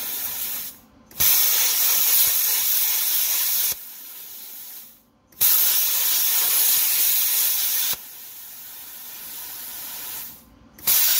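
Plasma cutter cutting metal under a car: a loud hiss of the arc and air, fired in three bursts. After each of the first two, it falls to a quieter air hiss before stopping.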